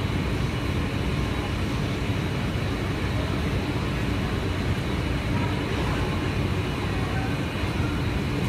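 Steady low rumble and hum of a Washington Metrorail train standing at an underground platform, its onboard equipment running, with faint steady whines above it.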